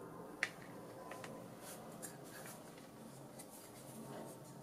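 Handling noise from the stacked circuit boards of a vintage Honeywell avionics unit being swung back into place by hand: a sharp click about half a second in, a few lighter clicks, then faint scraping and rustling.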